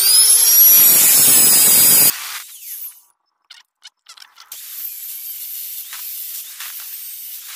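Angle grinder spinning up with a quickly rising whine and running loud against the steel of an old refrigeration compressor for about two seconds, then cutting off abruptly. A few knocks follow as the part is handled. From about four and a half seconds in, the disc grinds into the compressor's steel shell again with a steady hissing rasp.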